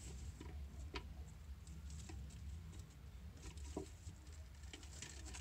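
Faint rustling and light taps as leafy dandelion greens are handled and set into a reptile food dish, with a sharp tap about a second in and another near four seconds, over a low steady hum.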